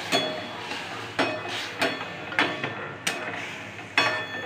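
Utensils knocking against a stainless-steel kadhai while watery tomato-onion masala is stirred: about six sharp clinks, each with a brief metallic ring, spaced roughly half a second to a second apart.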